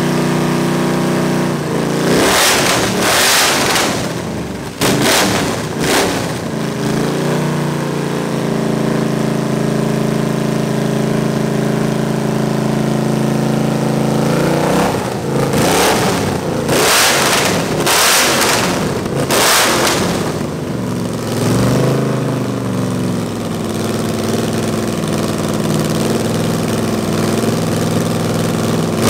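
Chrysler 361 big-block V8 running on an engine stand through open headers, revved by hand at the carburetor: sharp revs about two to six seconds in, a run of revs from about fifteen to twenty seconds in, and a steady fast run between them. It won't idle on its own and has no working accelerator pump, so the throttle is held open.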